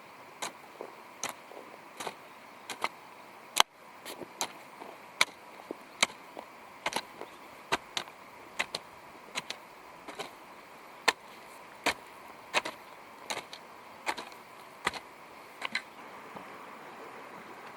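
Hand hoe striking the ground again and again, about one or two sharp strikes a second at an uneven pace, digging soil for planting.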